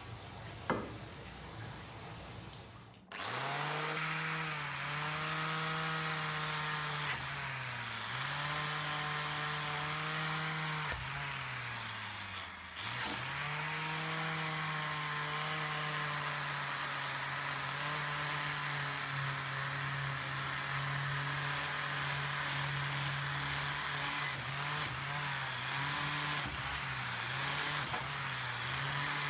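An electric power tool with a spinning wire brush wheel starts about three seconds in and runs, scouring rust off a steel axe head. Its whine dips in pitch several times, most deeply about halfway through, then picks up again.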